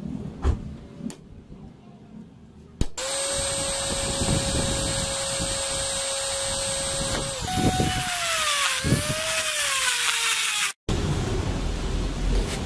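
A few light metal taps, then an electric drill running steadily and boring into a metal rod clamped in a vise. A few seconds later its pitch sags and recovers as the bit bites under load, and the sound cuts off abruptly near the end.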